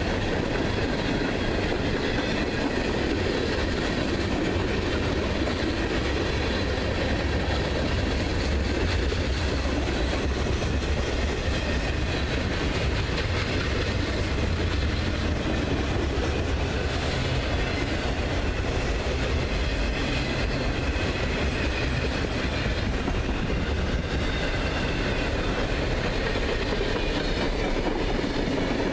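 Freight cars of a long train rolling past close by: a steady rumble and rattle of steel wheels on the rails, heaviest in the low end, with no break in it.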